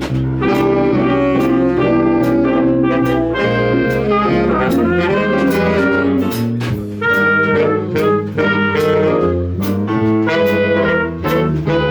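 Jazz orchestra of saxophones, trumpets and trombones playing a swinging ensemble passage over bass and drums, with drum strokes marking the beat.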